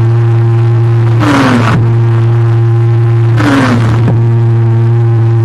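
Wall of stacked loudspeakers playing a very loud, steady bass tone. Twice, a rushing burst with a short falling sweep cuts in over it.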